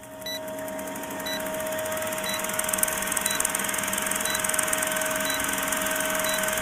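Old-film countdown leader sound effect: a film projector running with crackle and hiss over a steady hum, and a short high blip once a second as the numbers count down.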